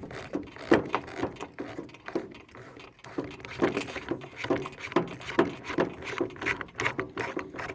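TNW Aero Survival Rifle being taken down by hand, its barrel being unscrewed: a run of irregular small metal clicks, taps and scrapes.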